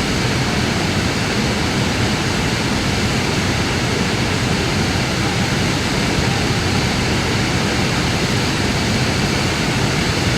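Waterfall rushing in a steady, even wash of water noise, heaviest in the low end, without change.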